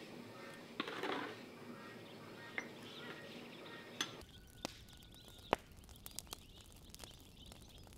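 A metal ladle clinks against glass jars as liquid is poured into them, with a short splash about a second in. About four seconds in, this gives way to quiet outdoor ambience with a low rumble, a few sharp ticks and a faint bird chirp.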